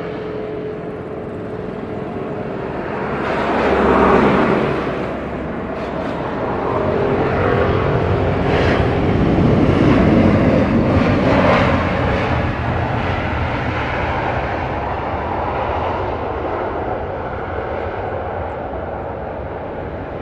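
Airbus A320-214 jet landing, its CFM56 engines heard as a continuous loud jet noise. It swells once about four seconds in and again over several seconds in the middle as the airliner rolls out on the runway, then eases off as it slows.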